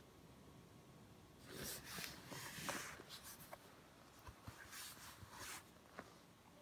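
Faint, irregular clicks with rustling handling noise starting about a second and a half in. The clicks are the intermittent clicking from a 2016 Razer Blade 14-inch laptop, which the owner hears when it is tilted and the fans speed up and suspects comes from a component near the heatsinks rather than the fans.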